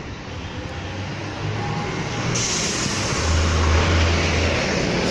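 Street traffic: vehicles passing close by, growing louder, with a heavy low engine rumble going past about three to four and a half seconds in.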